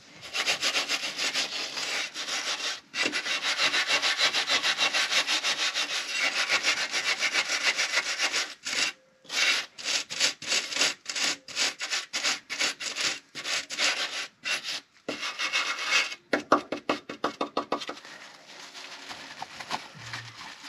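Hand brush scrubbing the car's chassis rail in rapid back-and-forth strokes. Treatment gel is being worked off the metal. The strokes run together at first, become more separate after a short pause about 9 seconds in, and stop about 18 seconds in.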